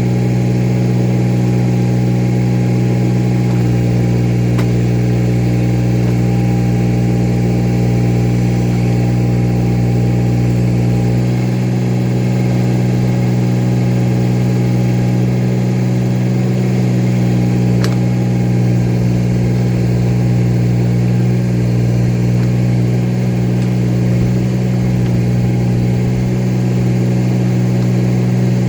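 An engine running steadily at one constant speed, with no change in pitch or loudness.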